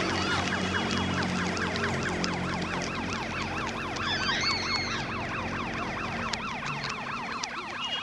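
A dense chorus of rapid, repeated rising-and-falling chirps from many birds, over low sustained tones. A louder arching call stands out about four seconds in.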